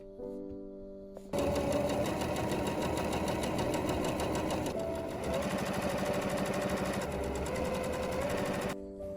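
A small motorised appliance runs loudly with a fast, even rattle, starting about a second in and cutting off near the end, over soft piano music.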